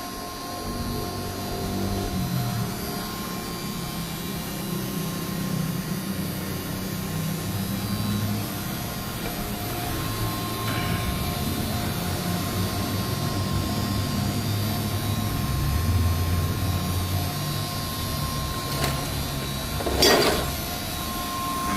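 A motor-driven machine running steadily, with a shifting low hum and a faint steady whine, and a brief louder rush of air near the end.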